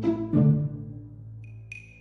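Music: low sustained notes, with a high ping about a second and a half in that rings briefly.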